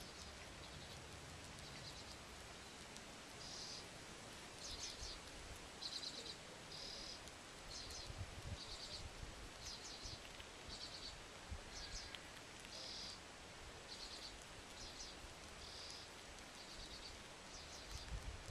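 A small bird calling over and over, short high calls about once a second, some of them quick trills, over a faint outdoor background hiss.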